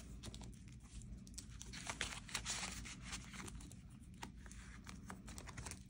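Paper banknotes and cash envelopes being handled: faint rustling and crinkling broken by many small flicks and taps.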